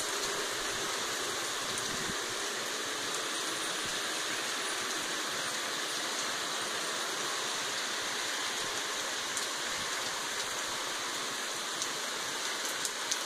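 Very heavy rain pouring down steadily as an even, dense hiss, with a few sharper drop ticks near the end.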